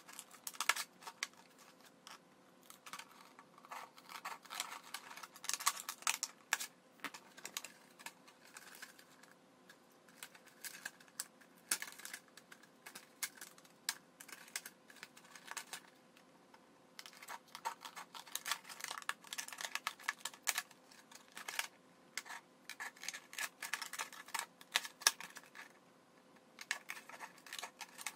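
Red-handled shears snipping through the thin wall of a plastic drink bottle, with the plastic crackling and clicking in quick bursts. Between bursts come short pauses, and the cut flaps crinkle as they are bent by hand.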